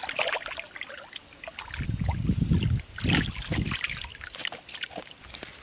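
Thick muddy water sloshing and splashing as hands grope through a shallow mud-filled hole and grab a fish, with several heavier splashes about two to four seconds in.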